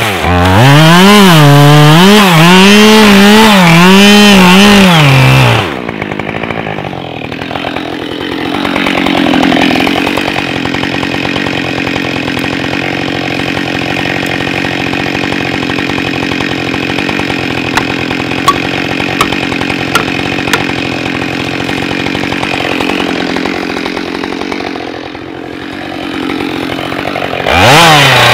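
Husqvarna 572XP two-stroke chainsaw running at high revs, its pitch swinging up and down. It then settles for about twenty seconds into a steadier, quieter and duller note, with a few sharp ticks midway, and revs back up near the end.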